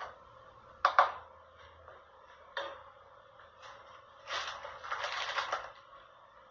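A kitchen utensil tapping and clinking against a dish a few times, then scraping for about a second and a half.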